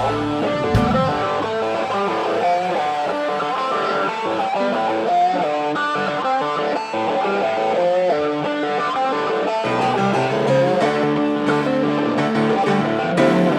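Intro music led by guitar, with plucked and strummed notes over a bass line.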